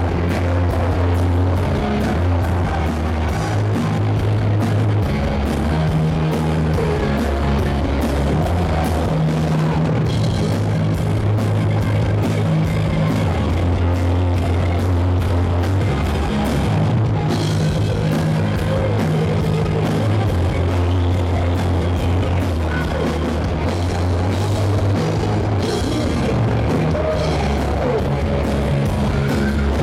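A live rock band playing loud: electric guitars through Marshall amps, a bass guitar and a drum kit keeping a steady, busy beat.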